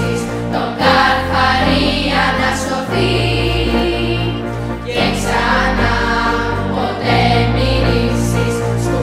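A children's choir singing a song in Greek, accompanied on a digital piano, with held bass chords changing about every two seconds.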